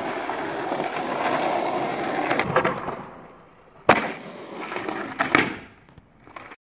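Skateboard wheels rolling over rough asphalt, then a sharp crack of the board just before four seconds in and more clacks of the board about a second later. The sound cuts off suddenly near the end.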